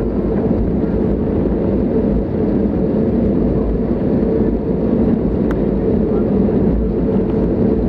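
Steady cabin drone of an Airbus A320neo taxiing, heard inside the cabin: a low rumble with a constant hum from the engines at taxi power and the aircraft rolling over the taxiway.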